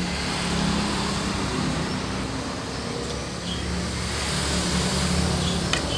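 Steady motor-vehicle engine rumble and traffic noise with a low wavering hum, and one light clink near the end.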